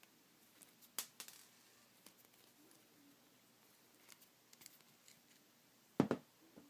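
Small metallic clicks and taps from a handheld jeweler's hole punch being worked on a penny, with a sharp click about a second in, a few light ticks later, and a heavier knock near the end.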